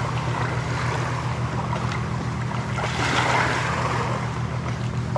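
A steady low engine-like hum with a noisy rush over it, like wind or water, swelling briefly about three seconds in.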